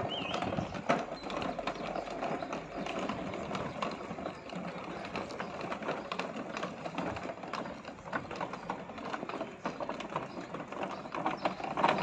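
A PUDU serving robot's small hard wheels rattling over cobblestones as it rolls along, a dense, uneven run of clicks and clatter.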